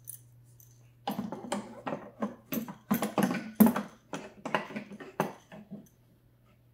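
Metal pipe and its fittings clicking and knocking against the plastic housing of an SLE 6000 ventilator as it is fitted back into place: a quick, irregular run of clicks starting about a second in and stopping near the end, over a low steady hum.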